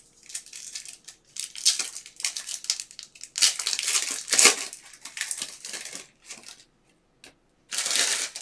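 Foil Panini basketball card pack being crinkled and torn open by hand: crackling foil rustles in repeated bursts for several seconds, a short pause, then one more rustle near the end.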